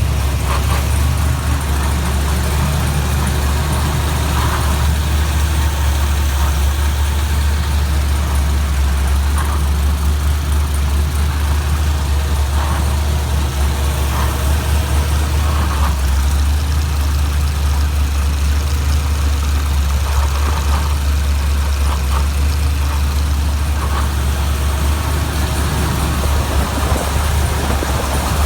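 Rebuilt GM 6.0-litre LS V8 with CNC-ported heads and a custom cam, idling steadily without revving.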